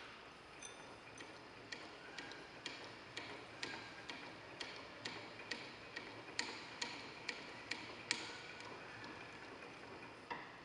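Faint, steady run of sharp ticks, about two to three a second, some with a light metallic ring.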